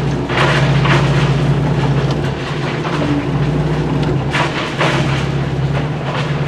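Excavator's diesel engine running steadily, heard from the cab, while the bucket scrapes and knocks through dirt and rocks scooping ore, with a few short scrapes scattered through.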